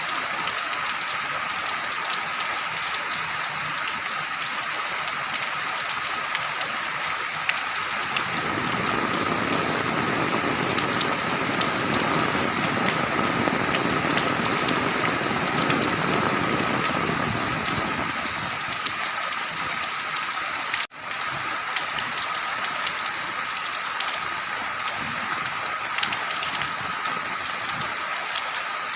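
Heavy rain falling steadily, a dense hiss with scattered drop pattering. A deeper rushing swells in the middle and fades again. The sound cuts out for an instant about two-thirds of the way through.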